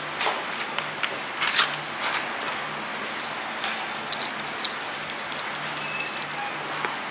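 A tapered roller pinion bearing being handled and worked by hand while it is coated with setup lube: a few light knocks in the first two seconds, then a quick run of small metallic ticks and rattles from the rollers and cage in the second half.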